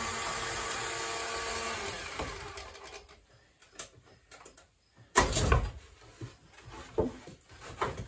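Chainsaw engine running steadily, then shut off, dying away about three seconds in. After a short quiet spell comes a loud thump about five seconds in, followed by several lighter knocks.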